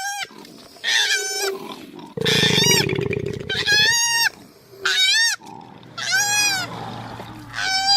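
Koala calling: a run of high squealing cries, each rising then falling in pitch, alternating with low noisy grunts.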